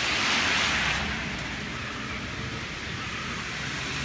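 A car passing on a wet road, its tyre hiss loudest in the first second and then fading as it drives away.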